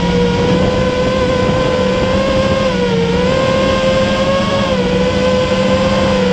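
Brushless motors and propellers of a Spedix Black Knight 210 racing quadcopter whining steadily, heard from its onboard camera. The pitch dips and recovers a few times as the throttle changes.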